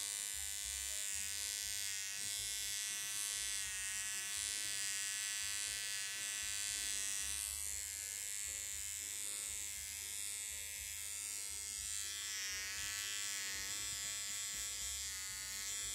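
Electric hair trimmer with an attachment fitted, buzzing steadily as it trims ear hair, its tone wavering slightly now and then.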